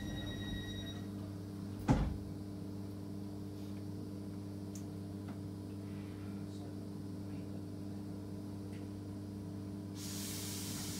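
Inside a Class 319 electric multiple unit running at speed: a steady low drone from the traction motors and running gear, with several held tones. A single sharp knock comes about two seconds in, and a hiss rises near the end.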